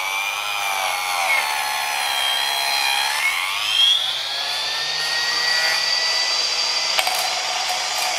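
Harbor Freight Mighty Mite 4-inch mini table saw cutting 3/8-inch mahogany. Its whining motor sags in pitch under load, dips deeply about three seconds in as the weak motor bogs, then climbs back and holds steady as the blade comes free. A sharp click near the end.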